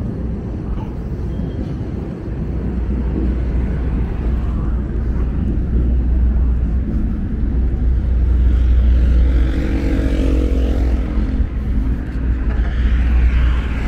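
City traffic ambience: a steady, heavy low rumble of passing vehicles. A vehicle's engine note rises about two-thirds of the way through.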